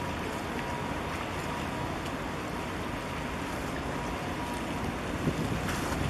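Steady wind and harbour water lapping against concrete breakwater blocks, with a faint steady hum and one brief knock a little after five seconds in.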